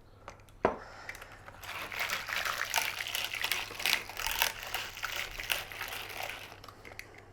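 Melted butter being mixed by hand into beaten eggs in a bowl: a single knock, then about five seconds of busy, irregular scraping and splashing of the utensil working through the wet mixture.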